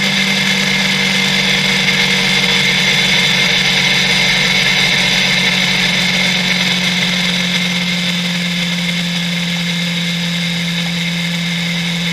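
Motorcycle engine running steadily at highway cruising speed, its pitch easing down slightly in the second half, over a steady rush of wind and road noise.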